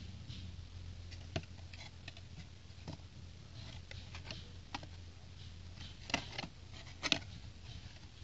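Small cardboard toy box being handled and turned over in the hands: scattered light taps and scrapes of fingers on cardboard, with two louder clusters of clicks about six and seven seconds in.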